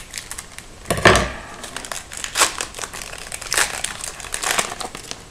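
Hockey trading-card pack wrapper being torn open and crinkled by hand: an irregular run of crackles, with a louder one about a second in.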